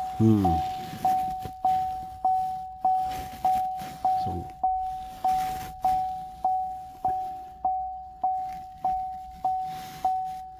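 Chevrolet Silverado's cabin warning chime dinging over and over, one steady pitch, each ding fading before the next, at a steady pace of almost two a second.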